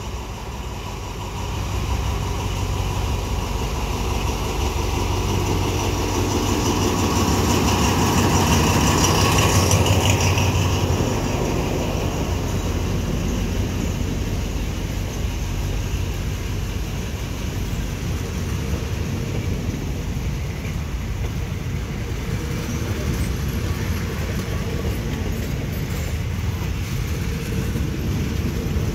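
Alsthom diesel-electric locomotive hauling a passenger train, its engine getting louder as it draws near and passes at about ten seconds in, followed by the steady rumble of the coaches rolling slowly past on the track.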